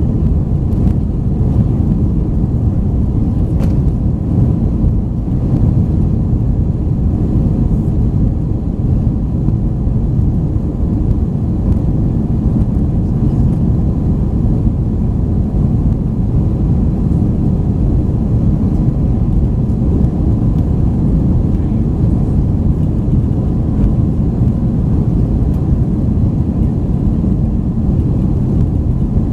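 Steady low rumble inside the cabin of an Airbus A321-231 in flight, from its IAE V2500 engines and air rushing past the fuselage, heard from a seat over the wing.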